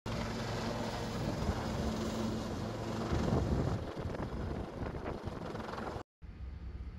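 Wind buffeting the microphone over a steady low hum on the deck of a ship at sea. The sound drops out for a moment about six seconds in and comes back as a quieter low rumble.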